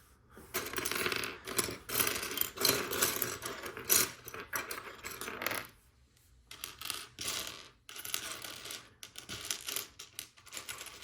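Loose Lego Technic plastic pieces clattering and rattling as hands rummage through them in search of a part, in two spells with a short pause in the middle.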